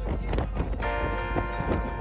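Music with a heavy bass and a fast percussive beat. About a second in, a held chord of several steady tones comes in over it.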